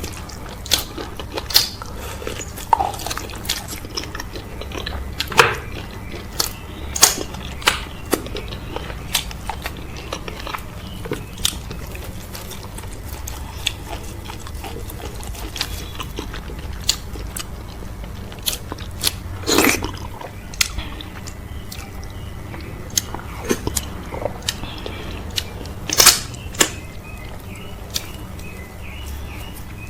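Close-miked chewing and biting of okra soup with cow foot and fufu: irregular wet mouth smacks and clicks, a few of them sharper and louder, over a steady low hum.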